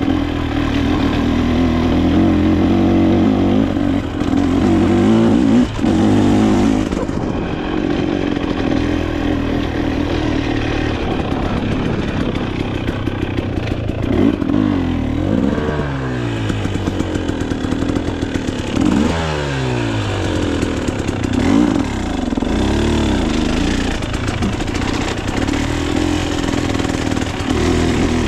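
Dirt bike engine running hard on a trail ride, revs repeatedly rising and falling as the rider works the throttle and gears.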